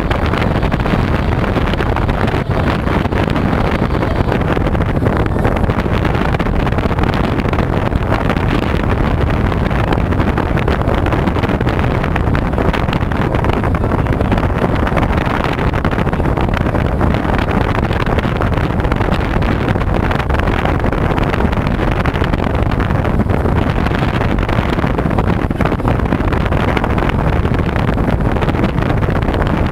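Outboard motor running on a fishing boat under way, with wind buffeting the microphone and water rushing past the hull: a loud, steady noise.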